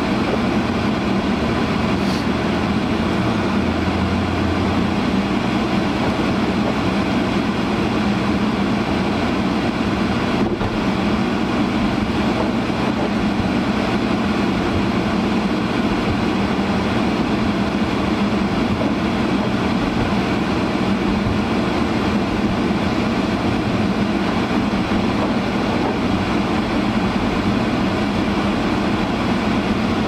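Honda CR-V's defroster fan running full blast, a loud steady blowing noise in the car's cabin mixed with engine and road noise as the car drives.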